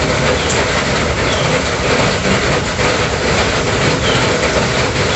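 Heavy rain falling, a steady noise without let-up.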